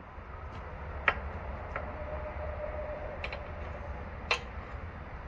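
A few sharp clicks and taps, four in all with the loudest near the end, as parts are handled on an outboard motor's power head, over a steady low rumble.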